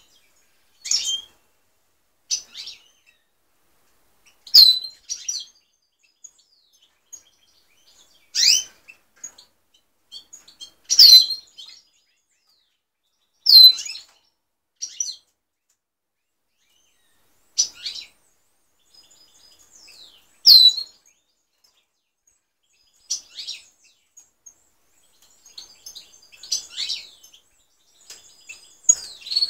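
European goldfinches calling from a cage: single short, high chirps every second or two, the loudest a few sharp notes that drop in pitch, with nothing between them.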